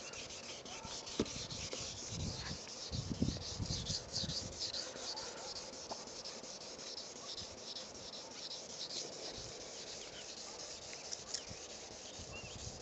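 Wet-sanding by hand: fine sandpaper rubbed back and forth over the soapy, wet clear coat of a car's side mirror, a faint repeated scuffing rasp as the intact clear coat is scuffed up. A few low rumbles of wind on the microphone about three seconds in.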